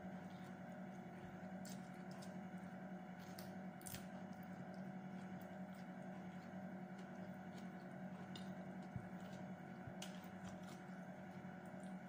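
A person eating by hand, with faint chewing and a few soft, scattered mouth clicks over a steady low hum.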